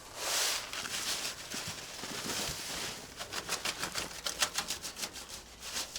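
Rustling for about three seconds, then a quick run of crisp clicks and rattles, several a second, that stops near the end.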